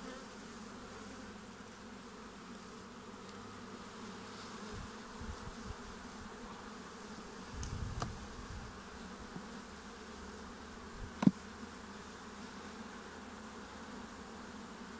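A honeybee colony buzzing steadily over an open hive, with a softer knock about eight seconds in and one sharp click about eleven seconds in.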